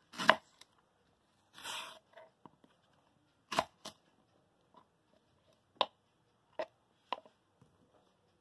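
Kitchen knife cutting through a raw green banana and knocking on a wooden cutting board: several sharp knocks at uneven intervals, with a short scraping cut about a second and a half in.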